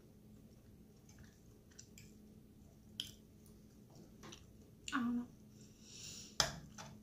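Eating sounds: soft chewing with a metal fork clicking and scraping against a plate, sharpest about three seconds in and again just after six seconds, with a brief louder noise about five seconds in.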